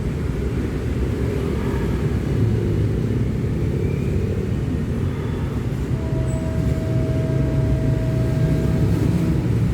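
Steady low outdoor rumble, with a thin steady tone that comes in about six seconds in and stops near the end.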